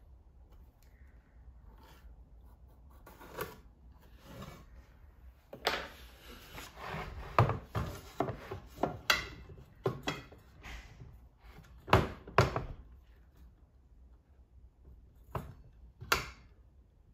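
A metal speed square and a circular saw being set against a 2x4 board: scattered knocks and clacks of metal on wood with short scrapes, the saw not running. The two loudest knocks come close together about two-thirds of the way through.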